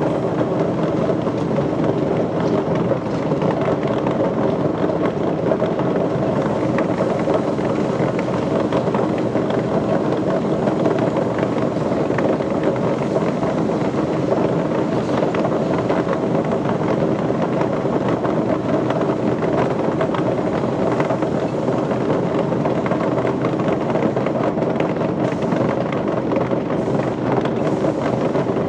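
Machinery running with a steady, unbroken drone.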